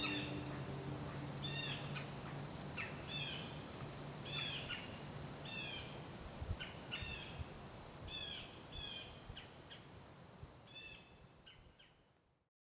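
A bird calling over and over, about one short call a second, over a faint outdoor hiss; the sound fades out near the end.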